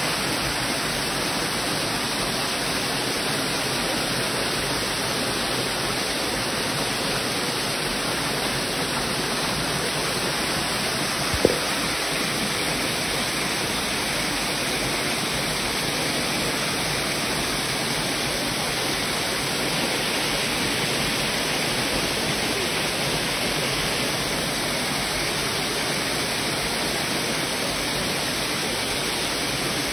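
Small waterfall pouring into a rocky pool: a steady, even rush of falling and churning water. One sharp click about a third of the way in.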